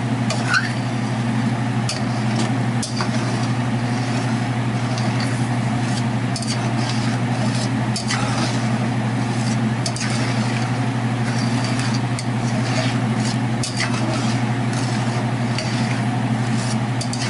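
A metal slotted spatula scraping and clicking against a stainless steel skillet as a wine and stock sauce is stirred, in short irregular strokes. A steady low hum runs under it and is the loudest sound.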